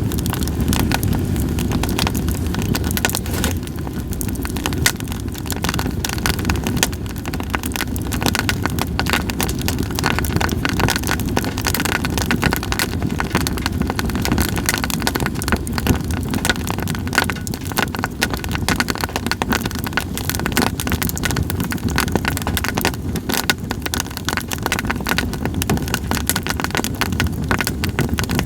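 Campfire of split sawtooth oak logs crackling: dense, irregular pops and snaps over a steady low rumble.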